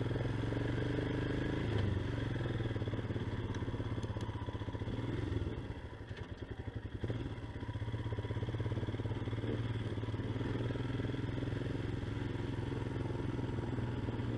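Motorcycle engine running steadily under way. About five and a half seconds in the engine note eases off and drops for a moment, then it picks up and runs on steadily again.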